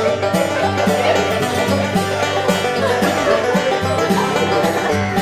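Background music with a plucked-string tune over a steady, rhythmic bass line.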